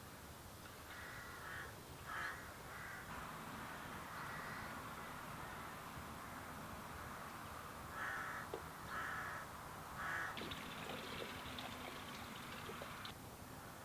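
A bird calling: two runs of three short calls, one near the start and one about eight seconds in. After the second run comes a steady hiss lasting about three seconds.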